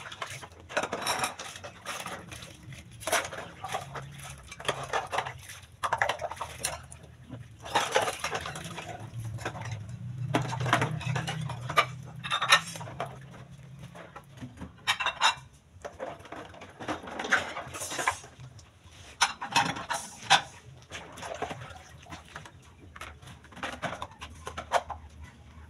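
Irregular clattering and clinking of hard objects, a sharp knock about every second, with a low hum in the middle stretch.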